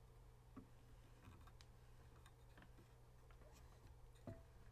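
Near silence: a faint steady low hum with scattered faint clicks, one a little louder about four seconds in.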